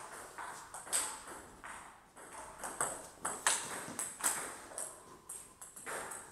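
Table tennis rally: the celluloid-type ball clicking sharply off the rubber-faced bats and the table in an irregular run, roughly one to two clicks a second.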